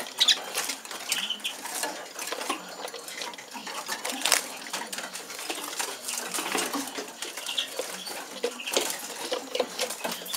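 A siskin hopping about a small wire-fronted show cage. Its movements make a scatter of light clicks, taps and scratches as its feet land on the wooden perches and wire bars.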